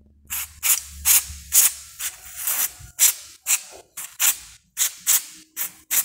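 Aerosol contact cleaner sprayed through a straw nozzle in a quick series of short hissing bursts, about two a second, onto a washing machine thermoactuator to dissolve the oxidation on its contacts.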